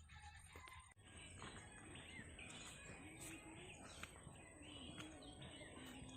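Faint birds chirping, with scattered short calls over quiet rural background noise.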